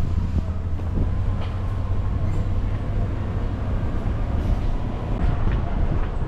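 Vehicle driving on the road: a steady low rumble of engine and road noise.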